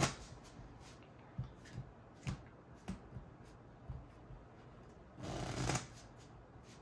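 A single deck of playing cards being shuffled by hand: scattered light clicks and taps of the cards, then a denser half-second flurry of card noise about five seconds in.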